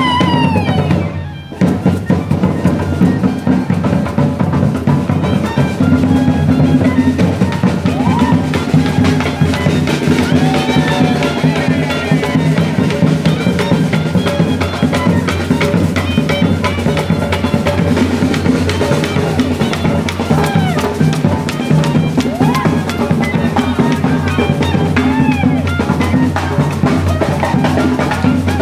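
Folk dance music led by hand drums playing a fast, steady rhythm, with short sliding melodic phrases above the drums. The music briefly drops away about a second in, then runs on unbroken.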